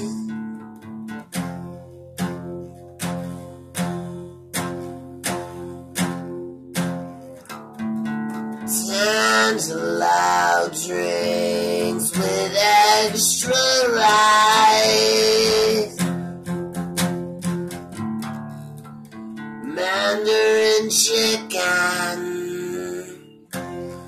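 A man singing to his own strummed acoustic guitar. The guitar opens alone with steady chords about twice a second. A sung passage comes in about eight seconds in, the guitar goes on alone again, and a shorter sung line follows near the end.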